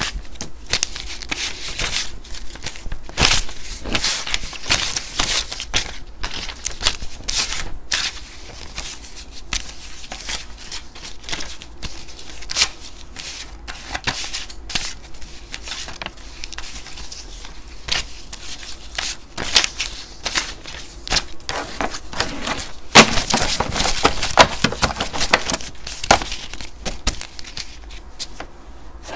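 Paper banknotes and cash envelopes being handled and sorted: continual rustling, crinkling and flicking of paper, with a louder stretch of crinkling about 23 seconds in.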